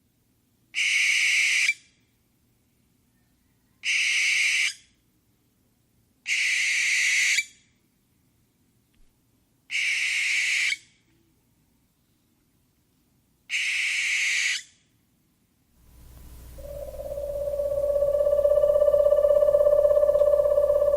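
Owl giving five harsh screeches, each about a second long and a few seconds apart. About three-quarters of the way in, a long steady pitched tone swells in and is held.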